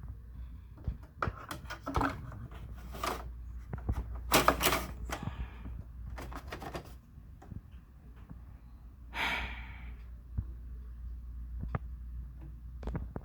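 Plastic parts of a window air conditioner's front panel and filter being handled: a string of scrapes, rustles and sharp clicks and knocks over a steady low hum.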